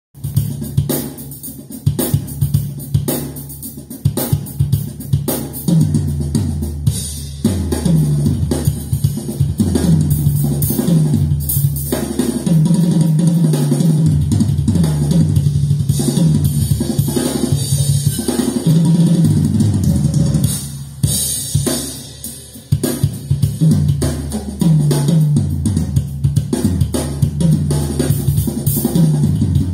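A drum test track played through a pair of Infinity Kappa 7 floor-standing loudspeakers: a drum kit with kick drum, snare and cymbals. A low stepping bass line joins in about six seconds in.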